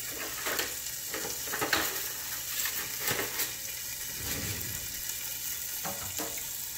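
Vegetables sautéing in hot oil in a pot, a steady sizzle, with scattered light knocks and scrapes of a utensil or lid during the first few seconds and twice more near the end.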